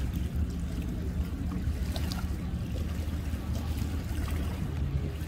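An engine idling steadily, a low even hum, with wind noise over it.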